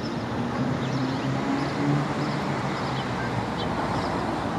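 Steady rush of distant city traffic, with short high bird chirps scattered through it.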